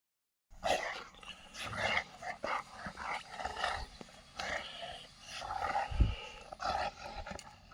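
A tosa inu puppy and a Dogue de Bordeaux at play: growling in short, irregular bursts. There is one low thump about six seconds in.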